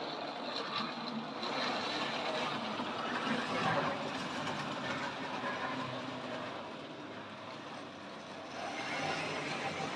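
Tri-ang OO-gauge model train running around the layout: a steady electric-motor whir with wheels rumbling on the rails, growing louder a few seconds in and again near the end.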